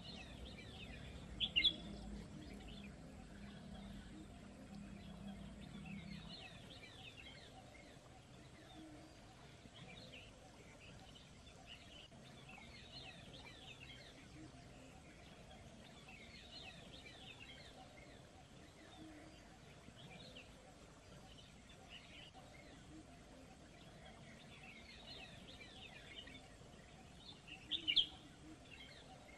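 Small birds chirping in short, repeated calls, with two louder chirps about a second and a half in and near the end, over a faint steady background hiss.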